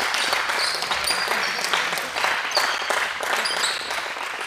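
A group of people clapping, a dense patter of hand claps with a few short high-pitched squeaks mixed in.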